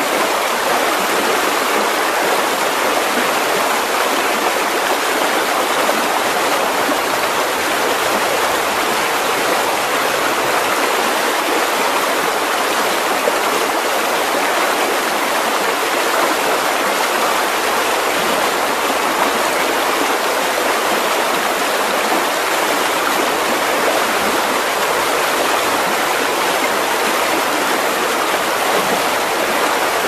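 Small rocky forest stream rushing and splashing over boulders in whitewater rapids, a steady, even rush of water.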